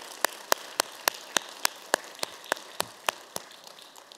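Congregation applauding, with one person's claps standing out sharp and close at a steady rate of about four a second. The applause dies away near the end.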